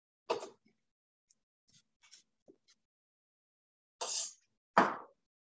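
A few short scrapes and knocks of a spoon working food out of a stainless steel pot and into a bowl, with faint ticks between them; the loudest comes near the end.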